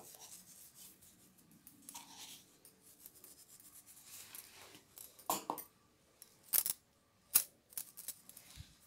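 Light kitchen handling sounds: a spoon working in a plastic mixing bowl of dry batter flour as salt goes in, with a few sharp clicks and taps in the second half.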